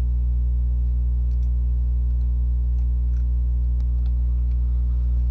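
Steady low electrical mains hum with a stack of overtones, the loudest thing heard, with a few faint computer-mouse clicks scattered through it.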